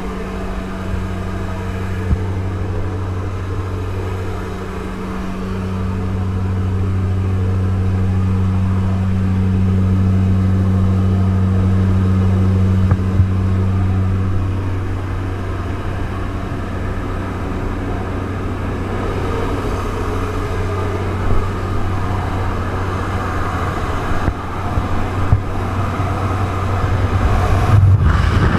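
Propeller aircraft engines droning steadily inside the cabin of a skydiving jump plane, a low constant hum. In the last third a rushing wind noise grows louder as the jump door stands open before exit.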